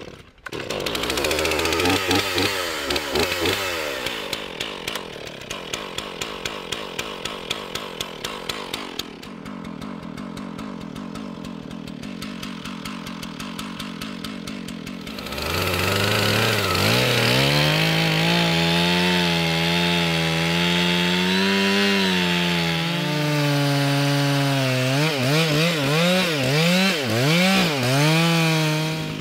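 Stihl MS 461 two-stroke chainsaw started, briefly revved, then left running at a low, uneven idle. About fifteen seconds in it goes to full throttle and cuts into the base of a ponderosa pine stump. Near the end the revs rise and dip over and over as the bar is worked in the cut.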